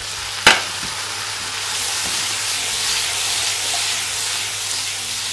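Browned chicken pieces dropped back into a hot frying pan of sautéed onion and peppers, with one sharp knock about half a second in, followed by steady sizzling that grows louder as the mix is tossed.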